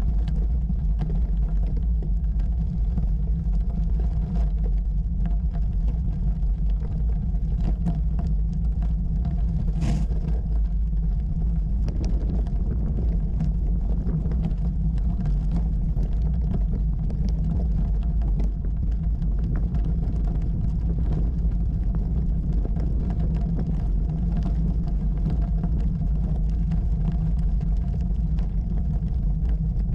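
Bicycle tyres rolling over a loose gravel track, crackling on the stones, under a steady low rumble of wind and road vibration on the camera's microphone. There is a sharp knock about ten seconds in.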